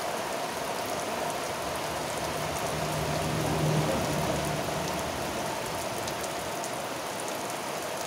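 Steady rain falling on garden leaves and ground. A low hum swells and fades about halfway through.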